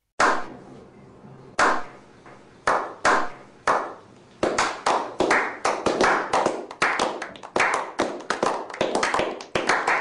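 A small group's slow clap: single claps about a second apart at first, quickening after about four seconds into faster, overlapping applause.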